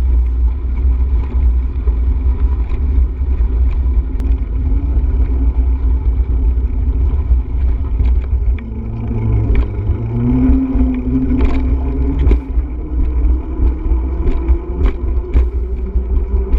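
Steady low wind rumble buffeting the microphone while riding. In the second half a faint pitched hum slowly rises in pitch.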